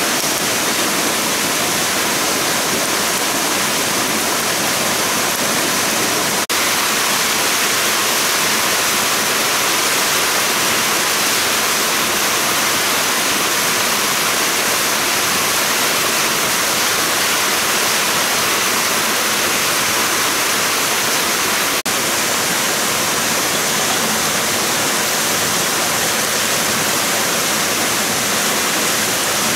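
Rushing water of a nearby stream, a steady loud hiss with no break except two brief dropouts.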